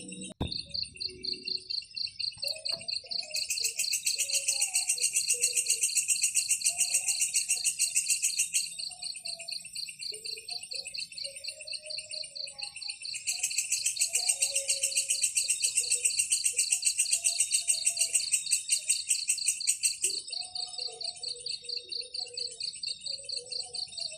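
Nature-sound ambience of chirping insects and birds: a steady, rapidly pulsing high chirp, joined twice for several seconds by a louder, faster pulsing chorus, over scattered soft lower calls.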